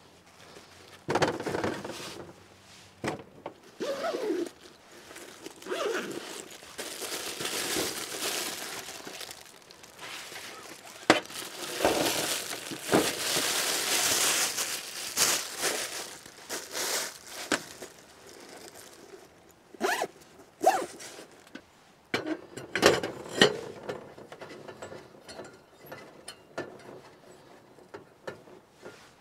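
Crinkling and rustling of a clear plastic bag being handled, with scattered knocks, thuds and clinks of camp gear being moved and set up; a run of sharper clicks and knocks in the last third.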